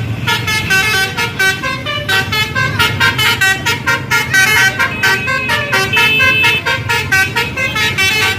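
Bus telolet horn playing a fast run of changing notes as a tune, over a low engine rumble.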